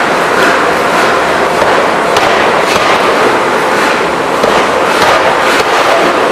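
Loud, steady machinery noise of a forging shop where an open die forging hammer works, with a scatter of light, irregular clanks.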